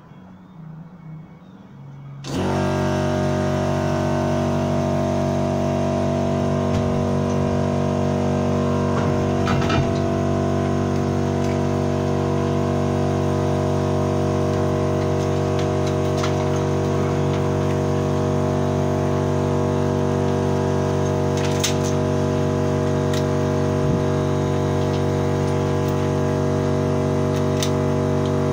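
Air compressor switching on about two seconds in and then running steadily with a loud, even drone.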